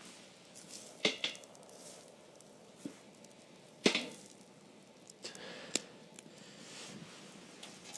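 Sharp snaps and knocks of firewood at a campfire, a handful of separate cracks with the loudest about four seconds in.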